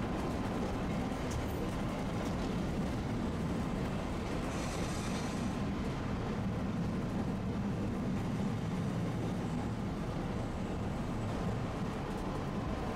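Tosaden streetcar running along its track: a steady low rumble of wheels and motor, with a brief hiss about five seconds in.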